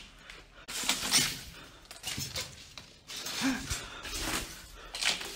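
Footsteps crunching and scraping over fallen ceiling boards and rubble, in irregular bursts of crackling noise, the loudest about a second in, others around three to four and a half seconds in and just after five seconds.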